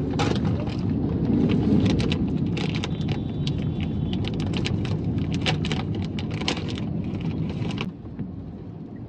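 A plastic snack packet being opened and crinkled, a dense crackle that stops near the end, over the steady road noise inside a moving car.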